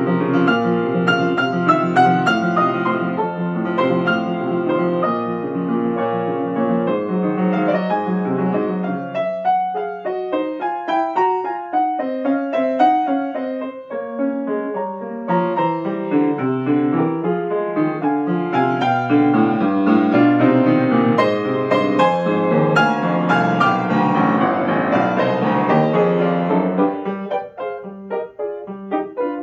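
Solo piano playing a classical piece, dense chords and runs, growing softer near the end.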